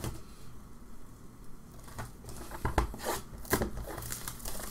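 Plastic wrapping crinkling as a sealed cardboard box of hockey cards is unwrapped and opened by hand, with a run of sharp crackles and clicks about two to four seconds in.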